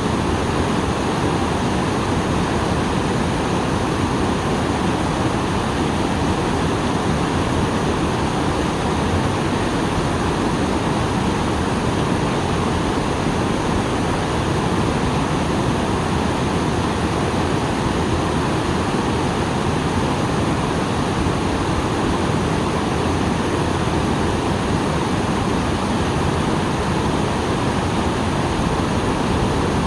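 A small waterfall on a stream after rain, water pouring and splashing in a steady, full rush.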